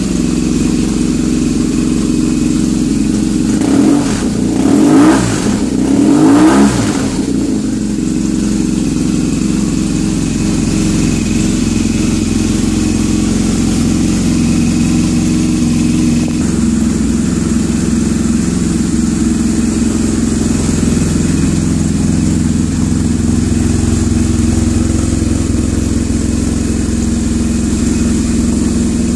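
BMW R nineT's 1170 cc air/oil-cooled boxer twin idling through a full Schnitzer aftermarket exhaust. The throttle is blipped three times about four to seven seconds in, each a quick rise and fall in revs, before it settles back to a steady idle.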